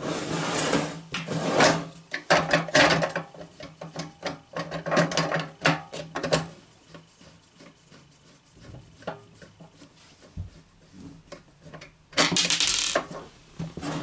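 Hands working inside a small steel key safe, scraping, rubbing and knocking against its metal parts while lining up its inner panel and screws. Bursts of scraping fill the first six seconds or so, then scattered light clicks, then another burst of scraping about twelve seconds in.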